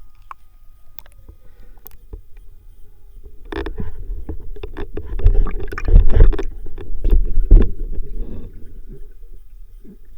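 Water sloshing and gurgling against the camera, with many knocks and splashes. It swells loud about three and a half seconds in, then dies down again about two seconds before the end.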